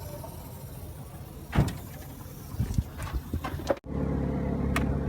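Outdoor background noise with a sharp knock and a few lighter clicks, then, after an abrupt cut, a car engine running steadily at idle.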